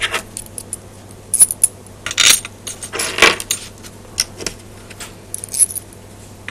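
Steel bolts clinking and rattling as they are handled and started by hand into the bolt holes of a rotator housing: irregular metallic clicks and short jangles.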